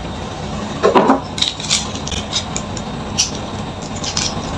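Kitchen utensils clinking and scraping against cookware over a steady background hiss, with one louder scrape or knock about a second in and scattered light clicks.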